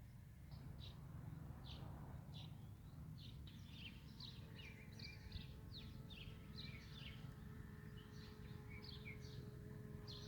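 Small birds chirping, many short high calls in quick succession, over a low steady rumble. A faint steady hum joins about four seconds in.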